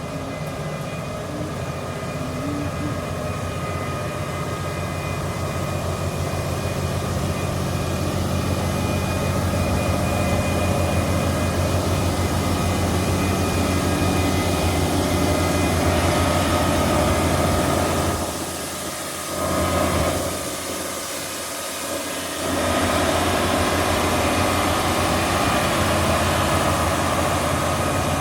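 Engine of a large harvest machine running steadily, with an even hum that grows louder over the first dozen seconds and dips briefly twice about two-thirds of the way through.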